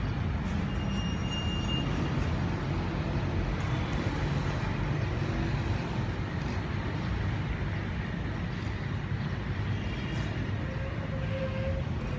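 Steady low rumble of street traffic, with no single event standing out.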